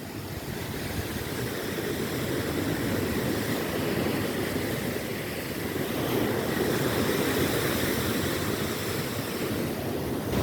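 Steady rush of rough sea surf washing against shoreline rocks, with wind, swelling and easing gently.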